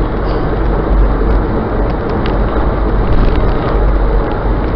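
Steady road and engine noise of a car driving at highway speed, heard inside the cabin, with a heavy low rumble.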